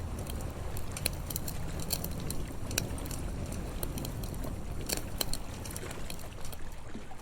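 Campfire crackling, with sharp pops scattered over a steady low rumble of the sea.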